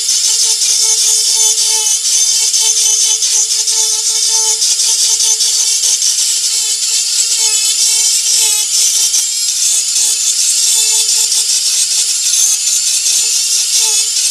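Dremel 4000 rotary tool on its flex shaft running steadily with a high whine while a burr grinds away wood, shaping the trunk of a carved tree.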